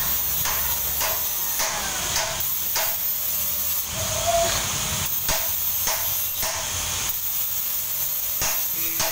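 Electric arc welding on thin 0.6 mm sheet metal: a steady hiss broken by irregular crackles and pops.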